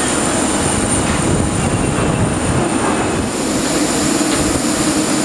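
Steady rushing noise of a jet airliner at the gate, with a high, steady whine on top.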